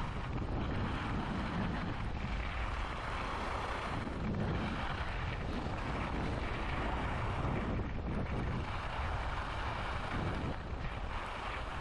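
Wind rushing over the microphone during a downhill ski run, with the hiss of skis sliding on snow, swelling and easing every few seconds.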